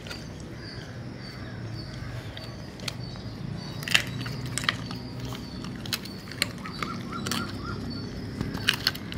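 A dog crunching on a chicken foot, with irregular sharp cracks as it bites down, the loudest about four seconds in.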